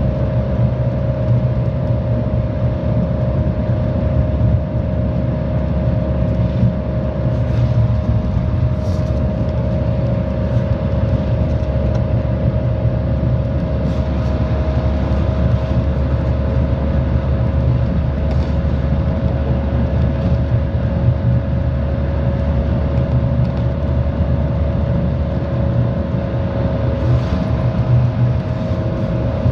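Honolulu TheBus city bus running steadily on its route, heard from on board: a low engine rumble under a constant mid-pitched whine, with a few faint rattles.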